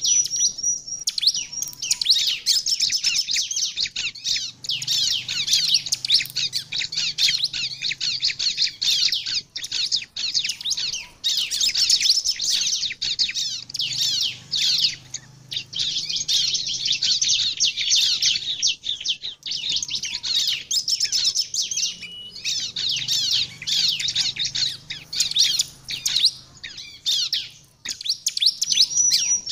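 Ciblek (bar-winged prinia) singing in long bouts of rapid, high chirping notes, broken by short pauses every few seconds: the full, steady song that keepers use as a lure call to set other ciblek singing.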